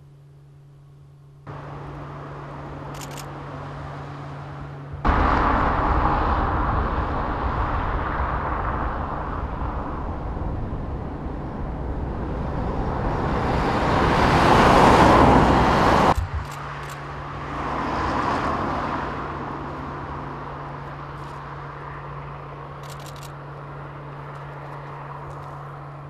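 Road traffic: a car passing on the road, its tyre and engine noise swelling to a peak and then cutting off abruptly. A smaller swell follows, over a steady low hum.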